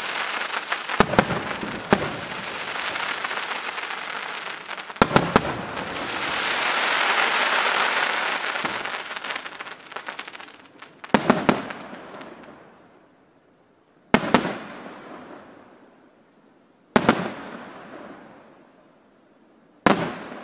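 Aerial fireworks shells bursting. In the first half, sharp bangs land over a dense wash of noise that swells and fades. In the second half, single loud bangs come about every three seconds, each trailing off in a fading rumble.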